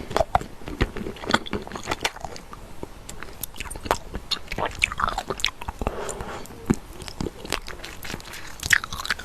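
Crunchy slime being squeezed and pressed, giving a dense run of irregular crackles, clicks and pops.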